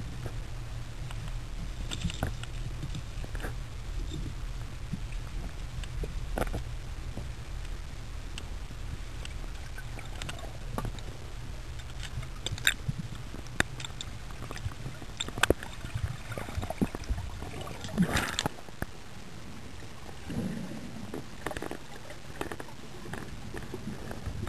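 Underwater ambience: a steady low rumble with scattered sharp clicks and ticks, and a denser cluster of louder clicks about 18 seconds in.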